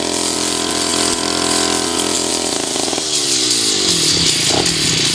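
Backpack two-stroke brush cutter running at high revs while its 40 cm straight blade cuts short grass. About three seconds in, the throttle is let go and the engine's pitch falls away.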